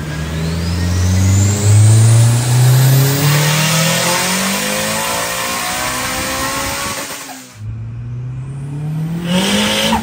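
Car engine accelerating hard, its pitch climbing steadily for about seven seconds alongside a high whine that rises with it. It cuts off abruptly, and a second hard acceleration starts and climbs again near the end.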